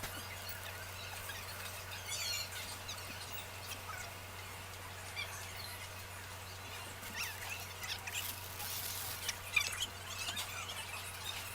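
Scattered short, high chirps, typical of small birds calling, over a steady low hum.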